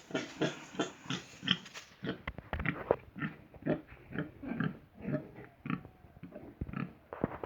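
Pigs grunting in a pen: a steady run of short grunts, about two to three a second.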